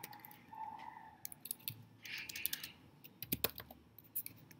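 Computer keyboard typing: scattered single keystrokes with short pauses, a quicker run of several keys about three seconds in.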